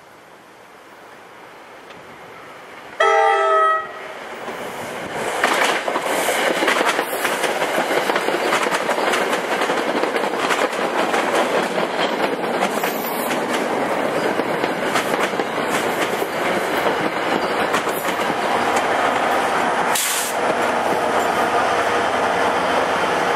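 NJ Transit push-pull commuter train, cab car leading, sounds one short horn blast about three seconds in, then passes close by with a steady rush and wheels clicking over the rail joints. The diesel locomotive pushing at the rear goes by near the end.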